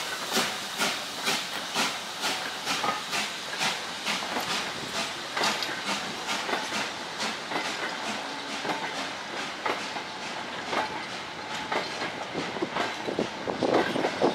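Southern Railway S15 4-6-0 No. 506 steam locomotive working a goods train, its exhaust beating in a steady rapid chuff, about three or four beats a second, that fades as it draws away. The goods vans rattle and clack over the rail joints, growing louder near the end as they pass close by.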